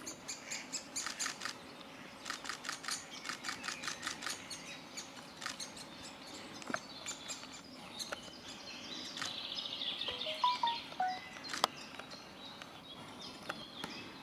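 Great spotted woodpecker nestlings begging from the nest hole: runs of rapid, sharp chattering calls, many a second, starting and stopping in bursts. About ten seconds in, a few short clear whistled notes from another bird.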